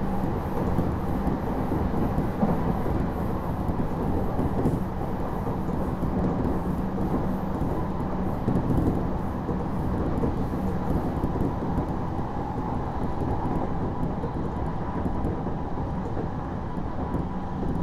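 Odakyu Series 1000 electric train heard from inside its motor car while running: a steady rumble of wheels on rail, with a faint steady hum over it.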